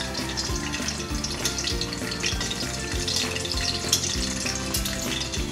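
An egg frying in shallow oil in a pan, a steady crackling sizzle, over background music with held notes.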